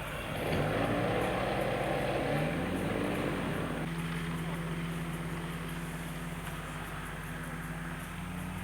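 Cessna light aircraft's piston engine and propeller running with a steady drone. About half a second in it grows louder, its pitch rising, and about four seconds in it settles back to an even drone.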